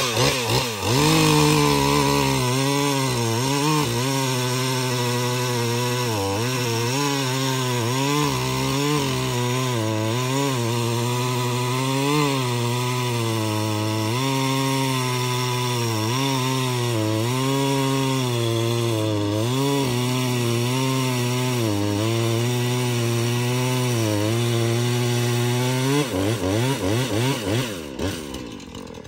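Husqvarna two-stroke gas chainsaw running at high revs while cutting through an ash log. Its engine note dips briefly and recovers again and again as the chain bites. Near the end the revs fall away and the saw quietens.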